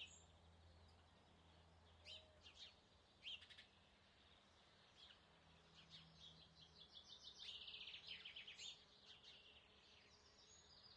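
Faint forest birdsong: a few short, high chirps, then a quick trill of rapidly repeated notes lasting about two seconds.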